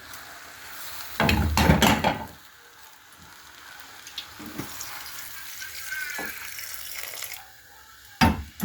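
Water splashing and running, with a loud gush about a second in and a softer steady run after it, then two sharp knocks near the end.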